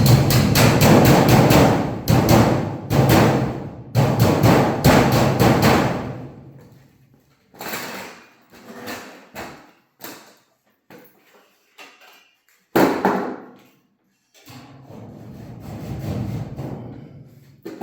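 Background music with a steady beat, loud for the first six seconds, then dropping to quieter, scattered sounds that start and stop abruptly.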